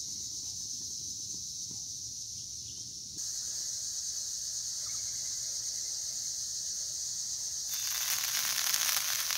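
Lard heating in an aluminum skillet on a camp stove, coming up to a sizzle: a broad frying hiss swells in near the end. Under it runs a steady high-pitched whine.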